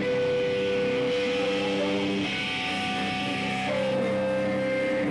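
Rock band playing live on amplified electric guitars, holding long sustained chords that change twice.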